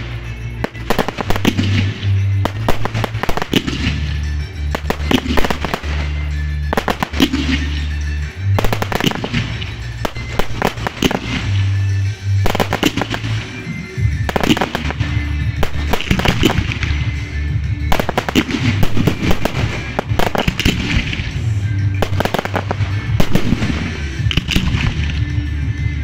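Fireworks bursting and crackling in rapid, dense bangs and pops, over music with a steady low bass.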